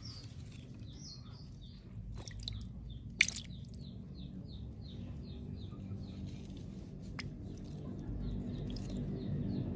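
A small bird chirping in a quick repeated series of short falling notes, about three a second, over a steady low rumble. There is a single sharp click about three seconds in.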